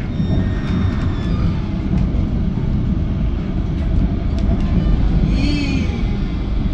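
GT6NU low-floor tram heard from on board while running along the track: a steady, loud rumble of wheels on rails. About five and a half seconds in there is a brief high-pitched squeal.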